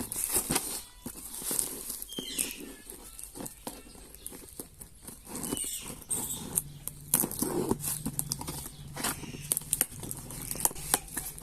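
Irregular sharp clicks and taps of a computer keyboard being handled and its keys pressed, with a low steady hum coming in about six and a half seconds in.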